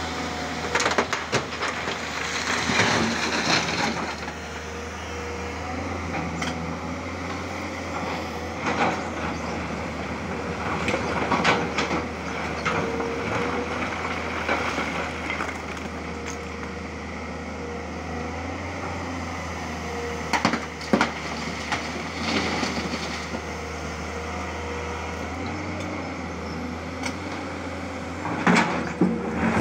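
Tata Hitachi 200 hydraulic excavator's diesel engine running steadily while its bucket digs into broken rock, with bursts of stone crunching and scraping every few seconds.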